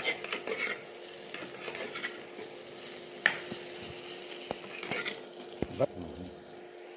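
Metal spatula stirring and scraping poha in an aluminium kadai, with a light sizzle and a few sharp clinks of the spatula against the pan. A faint steady hum runs underneath.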